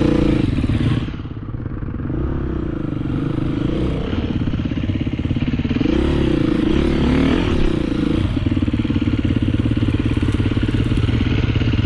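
Enduro dirt bike engine heard from on board, running at low speed over rough grassy ground, its revs rising and falling in three swells.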